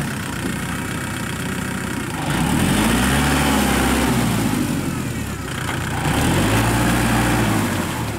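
Kubota L5018 tractor's diesel engine running under load while it drives a Maschio rotary tiller through wet paddy mud. The engine note rises and falls twice, around three seconds in and again near the end.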